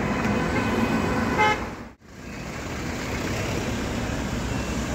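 City street traffic noise with a short car horn toot about a second and a half in. The sound drops out for a moment just after and comes back as steady traffic.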